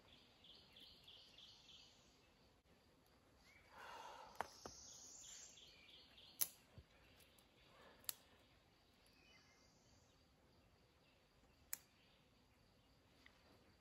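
Quiet small birch-bark fire just catching, giving a few sharp, widely spaced pops, the loudest about six seconds in.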